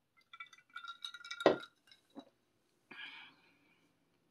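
Insulated drinking tumbler clinking with a ringing tone while being drunk from, then set down with a sharp knock about a second and a half in. A short breath out follows around three seconds in.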